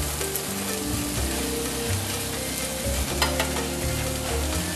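Butter-coated corn cobs sizzling on a hot grill plate.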